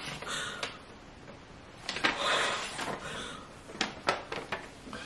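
Paper envelope rustling as it is opened and the card pulled out, in two short spells with a few soft taps.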